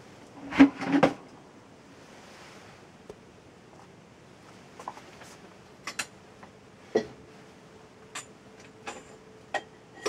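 A short clatter of knocks about half a second in, then a scattered series of sharp clicks, with a faint steady hum joining from about seven seconds in. No helicopter is plainly heard.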